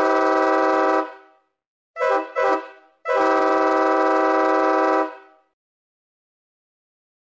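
Train horn sounding in blasts, a stage sound effect for an oncoming train: one blast that stops about a second in, two short toots around two seconds in, then a long blast of about two seconds.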